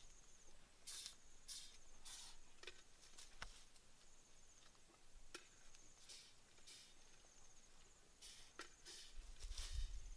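Faint, sporadic rustling and crackling of leaves and twigs as the branches of a leafy tree are pulled and handled by hand, with a faint high insect trill coming and going behind it.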